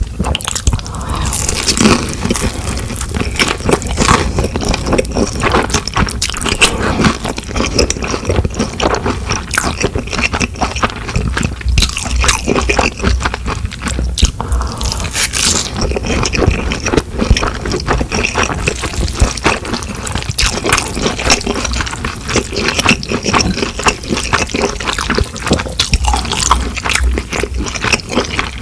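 Close-miked eating sounds of dressed noodles and dumplings: dense wet, sticky clicks and squelches, with scraping against the bowl.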